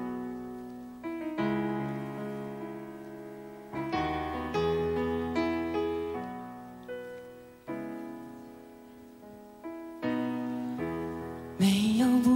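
Slow piano introduction to a ballad: sustained chords struck one after another, each left to fade. Near the end a male voice starts singing over the piano and the sound grows fuller and louder.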